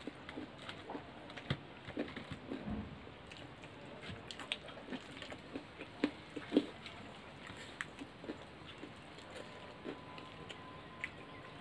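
Close-up eating sounds of two people eating noodles and omelette with their hands: chewing and mouth smacks, with irregular small clicks of fingers and food against steel plates.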